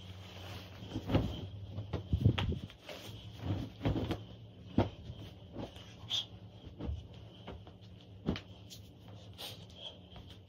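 Soft irregular thumps and rustles of a heavy blanket being handled and folded, mixed with footsteps, about a dozen in all, over a steady low hum.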